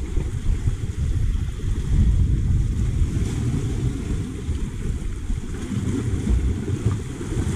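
Wind buffeting the microphone as a gusty low rumble, over surf washing against rocks.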